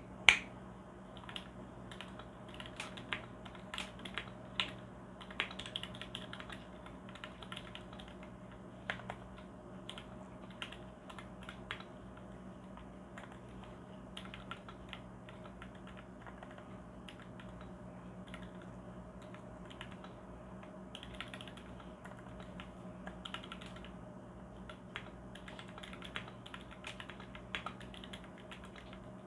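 Typing on a Tofu mechanical keyboard with Gateron KS-3 switches lubed with Krytox GPL205 G0. The keystrokes come irregularly, in quick runs and pauses, with one louder strike right at the start. A faint steady hum lies beneath.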